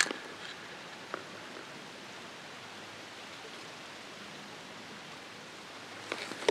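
Steady outdoor background hiss, with a sharp click at the start, a fainter one about a second in, and a few small clicks and rustles near the end.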